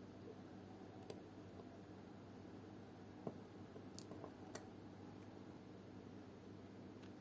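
A few faint, sharp clicks of small metal watchmaker's tools against watch parts, about five scattered through the middle, over a steady low hum.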